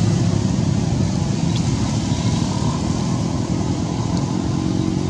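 A motor vehicle engine running steadily: a continuous low rumble with a faint hum in it.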